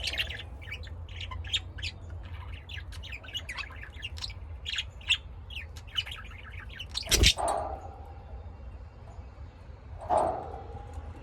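Pet lovebirds chirping in a fast run of short high chirps, with a loud sharp knock about seven seconds in. After the knock the chirping thins out, and one louder call comes about ten seconds in, over a steady low hum.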